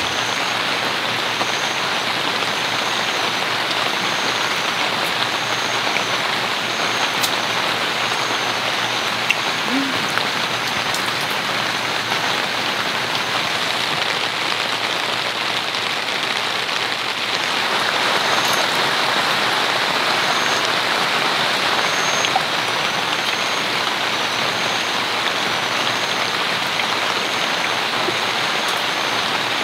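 Heavy rain falling steadily on a tent shelter, heard from inside, a little heavier about two-thirds of the way through. A faint high chirp repeats about once a second behind it.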